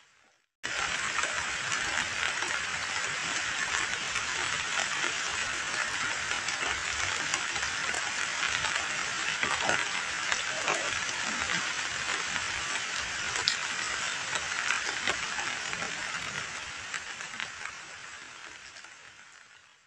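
Heavy rain falling onto muddy standing runoff water: a steady hiss of countless small splashes and patters. It starts abruptly after a brief silence and fades out near the end.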